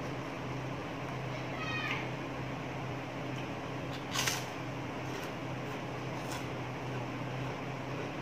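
A cat meows once, briefly, about two seconds in. About four seconds in comes a loud crisp crunch of a bite into a puffy fried cracker, with a couple of fainter crunches after it, over the steady hum of an electric fan.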